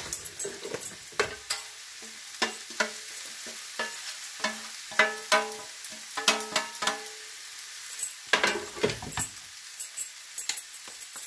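Chicken-and-potato filling sizzling in a frying pan while a utensil stirs, scrapes and knocks against the pan, with a quick run of ringing taps midway.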